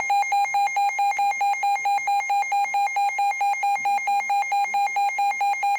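Emergency Alert System alert tone: a loud, buzzy electronic beep pulsing rapidly and evenly, signalling an incoming severe thunderstorm warning.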